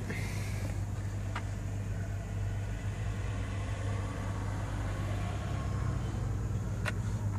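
Steady low mechanical hum, with two faint light clicks, one about a second and a half in and one near the end.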